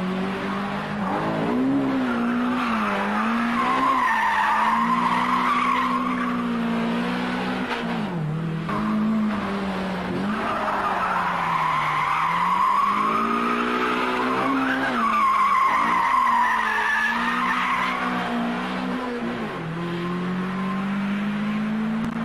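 Toyota AE86 Corolla hatchback engine revving up and down as the car is drifted, its pitch rising and falling through each corner. The tyres squeal in three long stretches while the car slides sideways.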